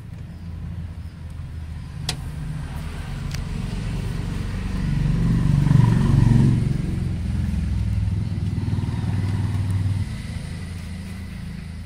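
A motor vehicle engine running with a low rhythmic rumble. It swells to its loudest about six seconds in, settles, then drops off sharply about ten seconds in.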